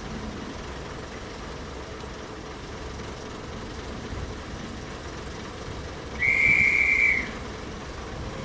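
A whistle blown once, a single steady high note lasting about a second, typical of a railway guard's whistle signalling that the train is ready to depart. Beneath it, the diesel engines of a Class 108 diesel multiple unit idle steadily at the platform.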